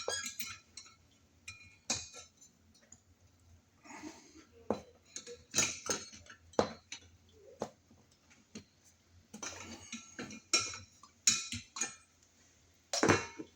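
Irregular small clicks, clinks and scrapes of metal screws, washer and an electrical box extension being handled and fitted onto a wall outlet box.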